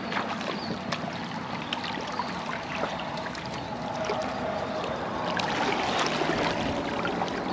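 Shallow tidal water washing and lapping at the shore, a steady rushing wash with a few small clicks and knocks.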